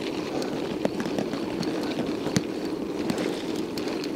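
1991 Scott Montana mountain bike ridden over a rough, broken road: a steady rumble of tyres and wind, with scattered sharp clicks and knocks as the bike jolts over bumps.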